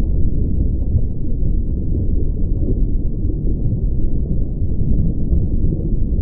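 Steady, muffled low rumble of seawater moving, heard through a camera's waterproof housing underwater, with everything above a low pitch cut away.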